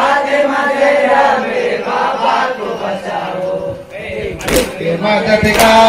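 Male voices chanting a Muharram noha lament, a lead singer on a microphone with the crowd singing along. In the second half a couple of sharp strikes come in, hands beating on chests (matam) in time with the lament.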